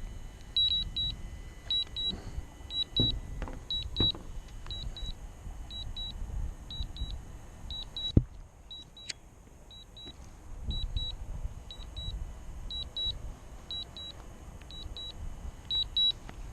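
DJI Mavic Pro Platinum remote controller beeping: pairs of short, high beeps repeating steadily, the alert it gives while the drone flies return-to-home on low battery. A low rumble runs underneath, with a sharp click about eight seconds in.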